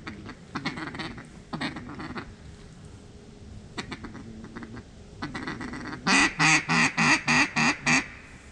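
Mallard quacking: a few softer quacks, then a loud run of about eight evenly spaced quacks, about four a second, near the end.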